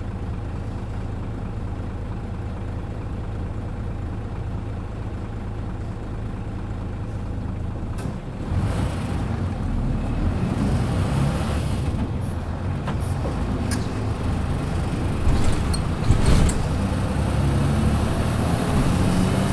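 Engine of a Hino KC-RU1JJAA short-body large bus, heard from on board. It runs steadily at idle for about eight seconds. Then a sharp click, and the sound turns louder and rougher as the bus gets going, with several sharp rattles and knocks from a bus known for its abnormal noises.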